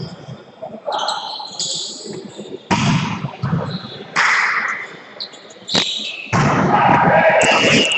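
Volleyball rally on a hard indoor court: the ball is struck with sharp smacks a few times, with players calling out. About six seconds in comes a louder stretch of shouting as the point ends.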